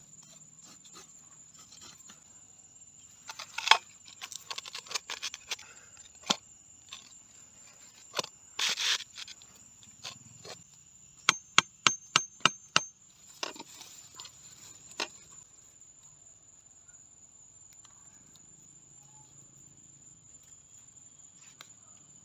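Insects chirring in one steady high trill throughout. Scattered clicks and short rustles come from about 3 to 15 seconds in, including a quick run of about eight sharp clicks near the middle.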